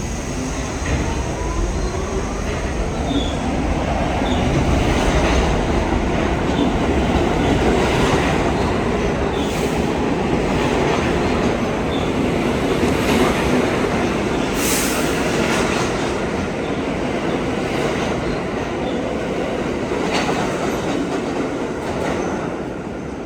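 R68 subway train pulling out of the station: its traction motors whine, rising in pitch as it accelerates, over heavy rumbling wheel and rail noise with occasional sharp clanks. The noise builds to a peak midway as the cars pass, then eases off.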